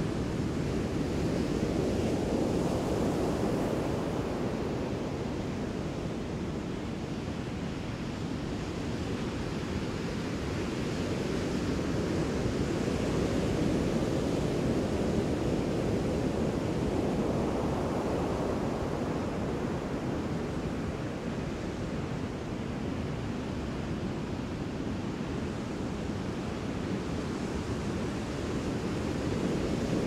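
Ocean surf: a continuous rush of breaking waves that swells and eases slowly several times.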